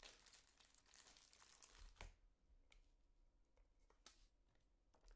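Faint crinkling and rustling of plastic as cased trading cards are handled, then a few light clicks of the hard plastic holders being lifted and set down.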